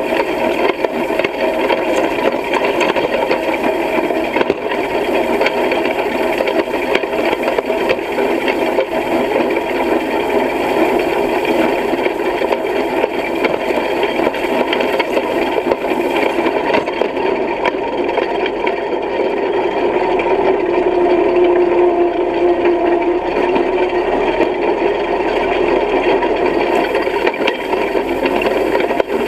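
Hay rake clattering and rattling steadily as it is pulled through cut hay, its tine bars and frame shaking, heard up close from a camera mounted on the rake.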